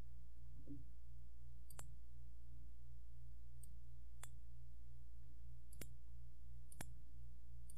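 Computer mouse clicks, about five short, sharp clicks a second or so apart, over a steady low electrical hum.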